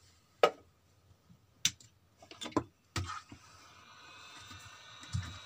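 Several sharp clicks and knocks from handling on a workbench, then about three and a half seconds in a faint steady whir with a thin high whine starts up and carries on.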